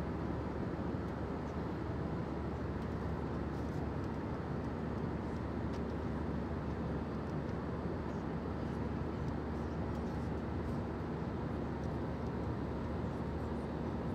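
Steady cabin noise of an Airbus A320 airliner in flight, the even rumble of its engines and the airflow over the fuselage. A faint steady hum joins about five seconds in.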